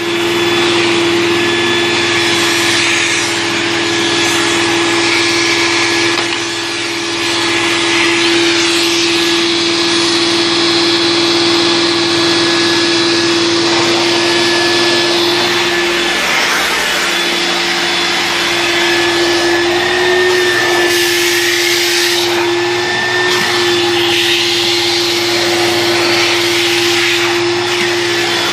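1992 Hoover Turbopower 2 (U2462) upright vacuum cleaner running: a steady motor hum under loud rushing air that swells and eases now and then.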